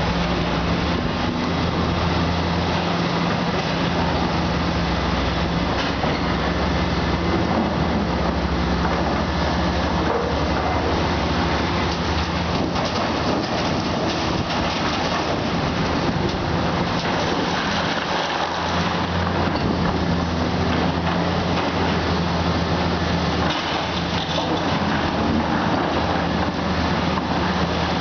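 Komatsu PC400 hydraulic excavator working: its diesel engine running steadily under a dense, noisy wash, with the engine note dropping away briefly twice in the second half.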